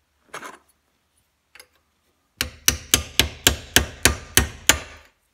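Ball-peen hammer tapping a steel split collar onto the rotor shaft of a Denso hairpin alternator, seating it ahead of pulling the bearing. A couple of faint clinks, then from about two and a half seconds in a quick run of about nine sharp metallic taps, roughly three to four a second.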